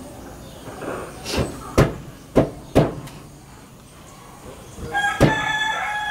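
Sharp wooden knocks in two pairs as the weft is beaten in with the wooden beater of a hand loom. About five seconds in, a rooster starts a long crow.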